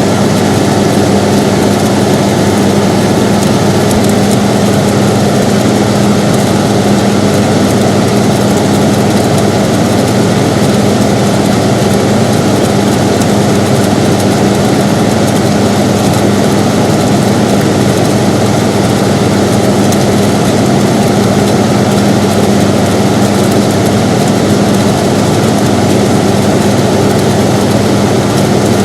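Air conditioner running steadily: an even rush of air noise with a constant low hum.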